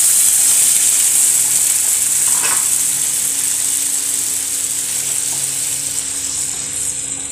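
Hot frying pan sizzling as thin coconut milk is poured over fried fish pieces, a strong steady hiss that slowly dies down as the liquid cools the pan.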